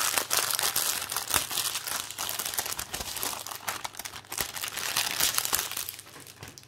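Plastic packaging of diamond-painting drill bags crinkling and crackling as it is handled and worked open, a dense irregular run of crackles and small clicks that thins out near the end.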